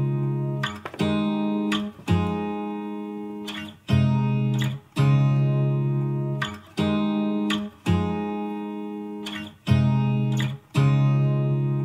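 Background music: acoustic guitar strumming slow chords, each struck about every second or two and left to ring out.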